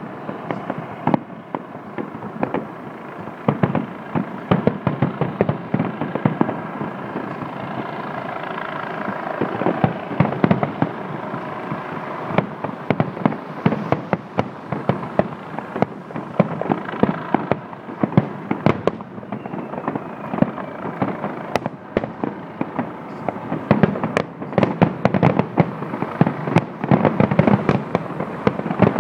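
Distant fireworks display: a long run of bangs and crackling, with dense volleys near the start and again in the last few seconds.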